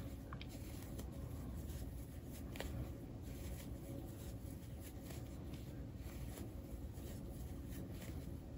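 Faint rustling and scratching of yarn being pulled through stitches with an aluminium crochet hook, with a couple of small ticks, over a steady low room hum.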